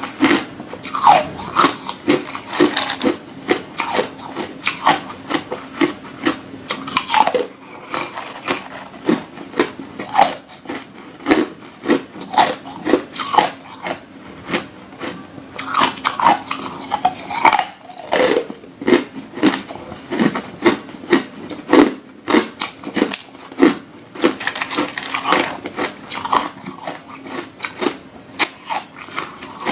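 Hard ice being bitten and crunched between the teeth: a continual run of sharp cracks and crunches, several a second.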